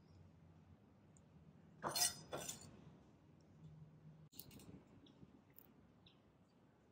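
Two sharp clinks about half a second apart: a chef's knife striking a plate as chopped pineapple is scraped off it. A few faint clicks follow later.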